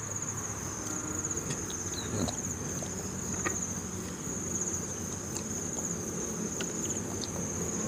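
A steady, high-pitched insect trill that pulses rapidly and runs without a break. Under it come a few faint light clicks of a bamboo skewer picking at snail shells.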